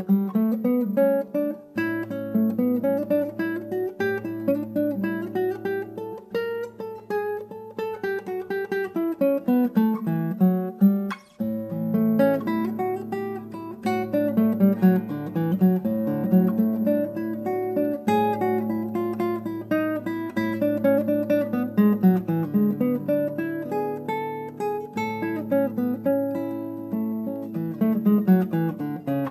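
Background music: acoustic guitar playing a flowing run of picked notes over a held low note, with a brief pause about eleven seconds in.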